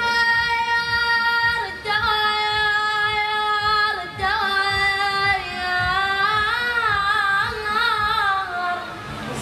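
A high solo voice singing long held notes that step down in pitch twice, then a wavering, ornamented phrase that trails off near the end.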